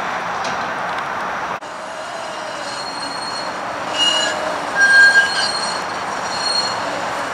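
Flexity Outlook streetcar wheels squealing on the tight curves of a streetcar loop. From about two seconds in, high-pitched squeals come and go over a steady background noise, loudest about five seconds in.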